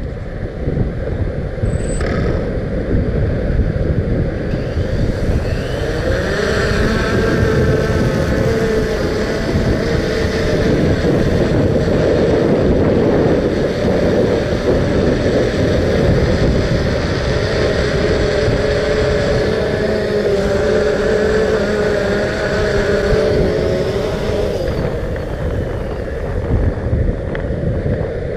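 Wind buffeting the microphone throughout. A wavering mechanical hum joins it from about six seconds in and fades near the end.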